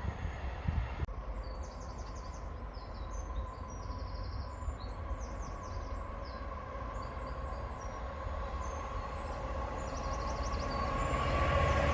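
Low rumble of an approaching pair of Class 66 diesel freight locomotives, growing louder over the last few seconds, with birds chirping.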